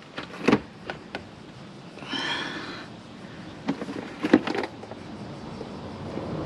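Scattered clicks and light knocks of hand work on a motorcycle's front end and its caged work light being moved, the loudest click about four seconds in, with a short squeak about two seconds in. A steady rumble builds up near the end.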